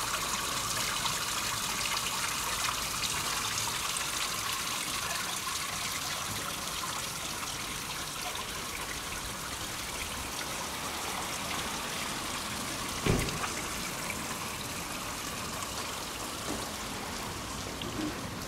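Water trickling and running steadily, an even splashing hiss. A single short thump about two-thirds of the way through.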